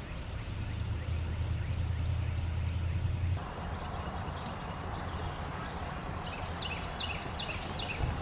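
Outdoor ambience: a low hum for the first few seconds, then after an abrupt change a steady high-pitched insect drone, with a few quick falling bird chirps about two-thirds of the way in.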